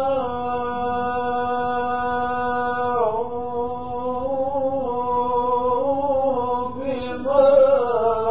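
A man's voice chanting Quran recitation in the ornamented mujawwad style. He holds one long steady note for about three seconds, then winds through a decorated melody that swells louder near the end.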